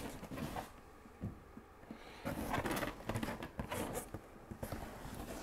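Cardboard shipping box being lifted and turned over in the hands: faint scraping and rubbing of cardboard with a few light knocks, busiest from about two to four and a half seconds in.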